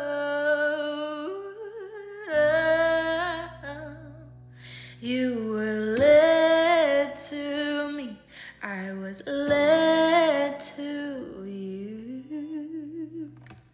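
Female voice singing wordless held notes and runs, humming-like, over a soft sustained low accompaniment, as the song closes. It fades out at the very end.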